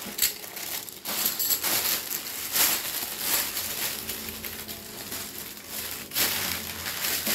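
Thin plastic carrier bag crinkling and rustling irregularly as it is handled, its top twisted and knotted shut around a packed tent.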